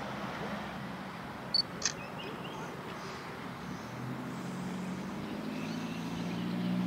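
Diesel passenger train approaching, its engine hum growing steadily louder from about four seconds in. Two sharp clicks about a second and a half in, and faint bird chirps.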